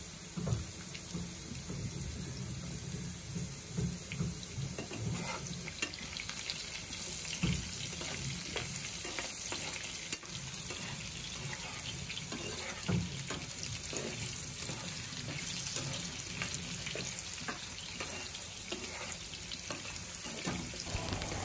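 Potato chunks frying in shallow oil in a nonstick pan: a steady sizzle with fine crackles. A spatula stirs them, knocking against the pan now and then.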